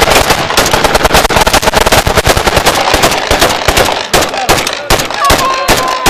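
Rapid gunshots fired in a dense, overlapping run that thins out to separate shots over the last two seconds.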